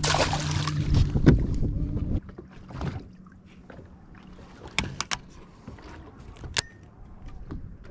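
A bass boat's electric motor hums steadily and cuts off abruptly about two seconds in. A short rush of hiss comes in the first second, and light knocks and clicks follow on the boat.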